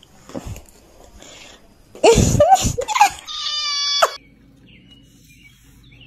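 Long-haired orange cat yowling loudly: a few wavering cries about two seconds in, then one long, steady cry that cuts off suddenly about four seconds in.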